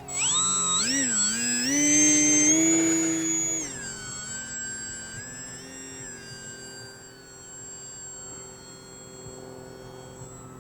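Brushless electric motor and propeller of a Volantex Saber 920 RC plane whining as the throttle opens. The pitch rises and wavers, holds high for a couple of seconds, then drops about four seconds in to a lower, steadier whine that fades somewhat.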